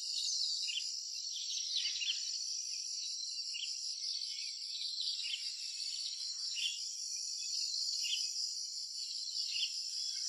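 Steady high-pitched chorus of insects, with a short chirp repeating about every one and a half seconds.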